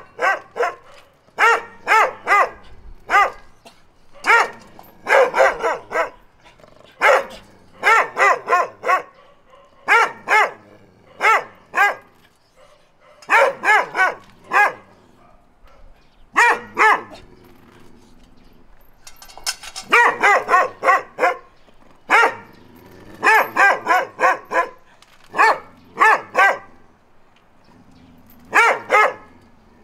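Dog barking repeatedly, in quick runs of several barks with short pauses between them and a longer lull about halfway through.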